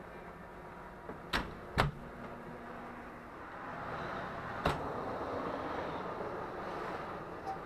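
Double metal doors of a commercial oven being handled: two sharp clunks close together about a second and a half in as the doors shut, and another clunk a few seconds later. A steady rushing background runs underneath, growing louder in the second half.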